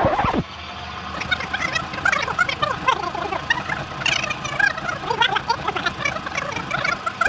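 A dense chatter of many birds calling at once, short chirps and squawks overlapping.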